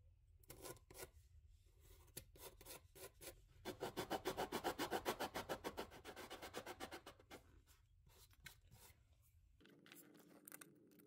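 A wooden pipe cover from a stopped bass flute pipe being rubbed back and forth on sandpaper to true its warped face flat, so it stops leaking air. The quick strokes are loudest and most even in the middle, then slow and fade toward the end.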